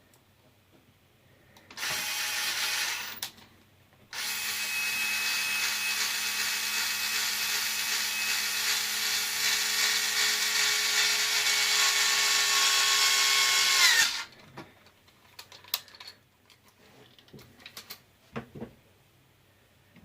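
Small electric screwdriver running to back out screws: a short run of about a second, then a longer run of about ten seconds with a steady motor whine that winds down at the end.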